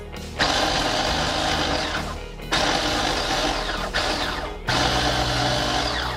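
Electric food processor pulsed three times, each run about a second and a half with short pauses between, its blades chopping chilies, ginger, garlic and shallots into chili paste.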